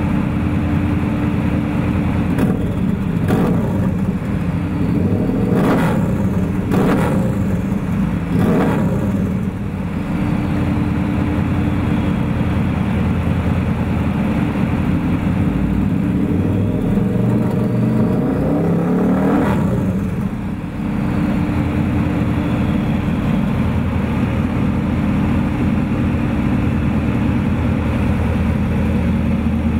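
Turbocharged 2006 Harley-Davidson VRSCSE2 Screamin' Eagle V-Rod's liquid-cooled V-twin idling steadily on a dyno at about 1,200 rpm. A few brief sharp sounds come a few seconds in, and a short rising sweep comes about two-thirds of the way through.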